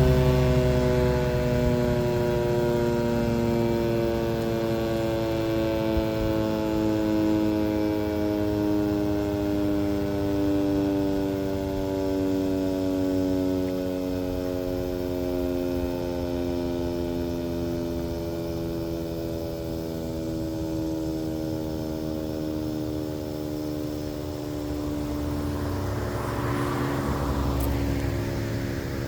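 Federal Signal 2T22B two-tone rotating siren winding down at the end of its alert signal. Its chord of tones sinks slowly and steadily in pitch and fades as the rotor coasts to a stop.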